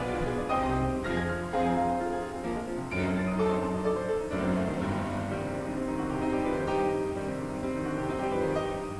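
Background music: piano notes over low bowed strings.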